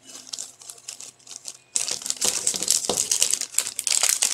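Small plastic packets crinkling as they are handled, light and sparse at first, then louder and continuous from about two seconds in.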